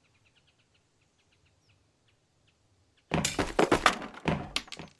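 A cartoon dump truck tipping its bed, with a clatter of hard parts tumbling out onto the ground: a quick run of loud knocks and cracks starting about three seconds in. Before that there are only faint bird chirps.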